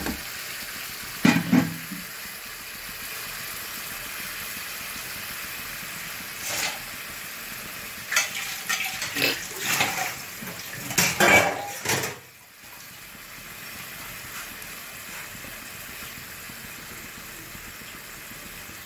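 Potato curry simmering and sizzling in a pan with a steady hiss. A spatula knocks and clatters against the metal pan twice about a second in, then in a run of clatters between about six and twelve seconds.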